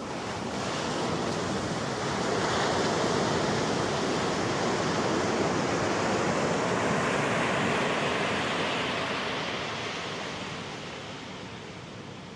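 Ocean surf, an even rushing noise that swells over the first couple of seconds, holds, and fades away near the end.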